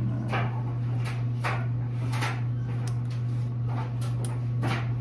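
A piston ring being worked by hand onto a two-stroke piston: a handful of short, light clicks and scrapes, irregularly spaced, over a steady low hum.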